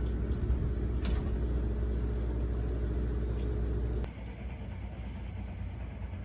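Trolley train of the Kurobe Gorge Railway, an electric locomotive hauling open cars, rumbling across a steel bridge with a steady hum. About four seconds in the sound drops to a quieter, fainter rumble.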